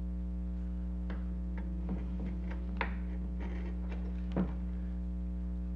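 Scattered light clicks and taps of small plastic toy parts being handled and fitted together, the loudest about four and a half seconds in, over a steady electrical hum.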